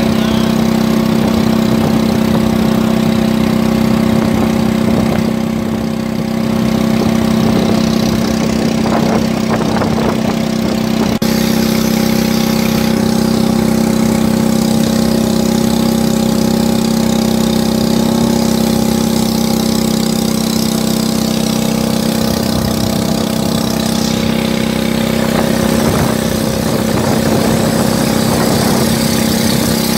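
Small petrol water-pump engine of an alkon longboat running steadily under way, with the hiss of water along the hull.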